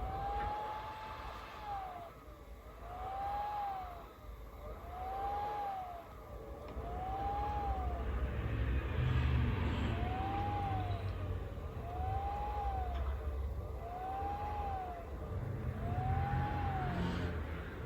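Abnormal whining noise from a personal computer: a tone that rises and falls about once every two seconds, like a slow siren, over a low rumble.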